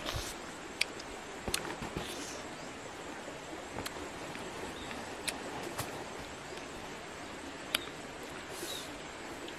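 Steady outdoor hiss with scattered sharp clicks and smacks from a mangosteen being eaten and its thick purple rind being pried apart by hand.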